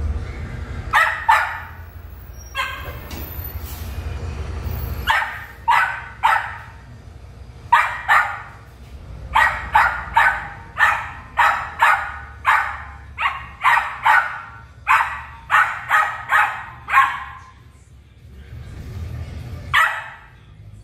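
Australian cattle dog (blue heeler) puppy barking again and again in short, sharp, high barks, mostly in runs of about two a second, with a lull of a few seconds near the end. The puppy is agitated, barking at a cat.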